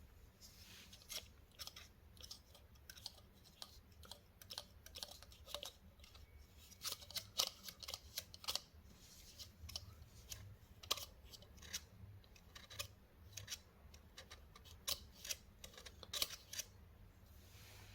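Wood burning in a wood-gas fire pit, crackling and popping in irregular sharp clicks over a faint low hum.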